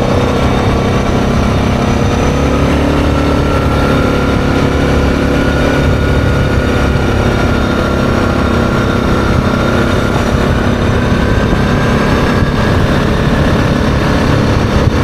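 ATV engine running steadily at cruising speed as the quad travels along a gravel road.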